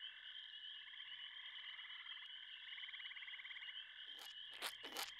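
Faint steady frog chorus, a trilling night ambience, joined about four seconds in by a quick run of short swishes.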